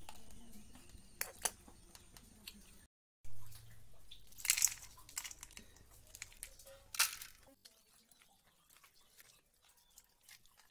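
Crunches, rattles and sharp clicks of dry fried food and steel plates being handled, as a crunchy snack mix is dropped by hand onto a steel plate. The sound breaks off briefly about three seconds in.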